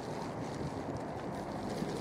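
Steady wind noise on the microphone, an even low rush of air with no distinct events.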